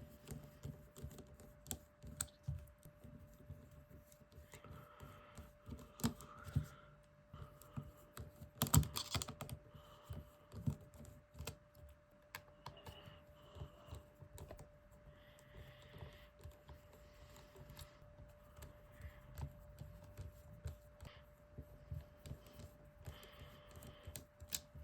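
Faint, irregular small clicks and taps of a precision screwdriver and tweezers working the tiny Phillips screws out of an iPhone 3GS's logic board, with a louder clatter of handling about nine seconds in.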